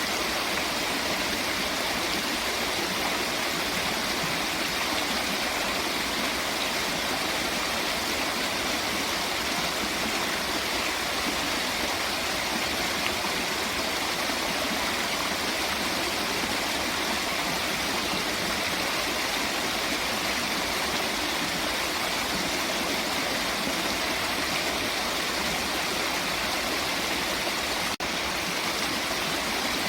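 Steady rushing water, an unbroken even rush with a momentary dropout near the end.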